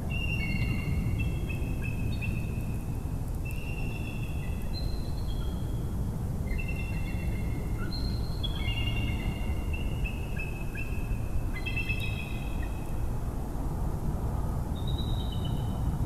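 Bird calls: a series of clear, high whistled notes at stepped pitches, in clusters, over a steady low rumble.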